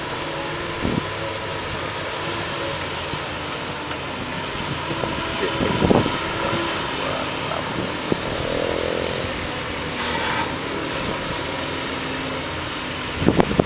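Doosan DX225LC excavator's diesel engine running steadily as the machine digs, with a brief louder sound about six seconds in.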